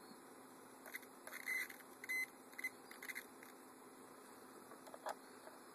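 Multimeter continuity tester giving short high beeps, the loudest about one and a half and two seconds in, as the probes make contact, with light clicks of the probes being handled.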